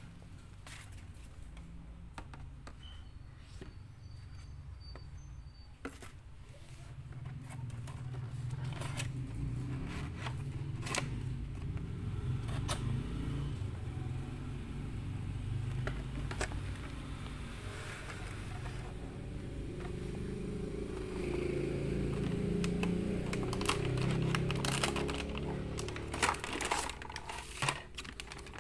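Hands handling a cardboard action-figure box and its plastic packaging: scattered rubbing, scraping and clicks over a steady low rumble, with a cluster of sharper clicks near the end as the clear plastic tray is lifted out.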